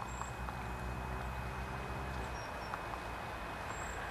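Outdoor ambience: a steady low rumble, with a faint hum that fades out about two and a half seconds in, and a few faint high chirps.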